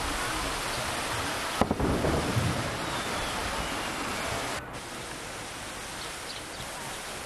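Fountain jets splashing into the basin, a steady rushing of water, with a knock and a low rumble about a second and a half in. About four and a half seconds in it cuts off abruptly to a quieter outdoor hush with a few faint high chirps.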